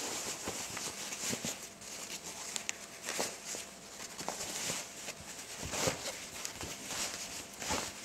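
Fabric drawstring tote bag rustling and scuffing as it is turned over and handled, in a series of irregular soft rustles.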